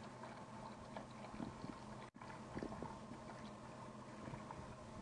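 Faint crackling and bubbling of beef and masala cooking in a pot with meat stock, with a few small clicks.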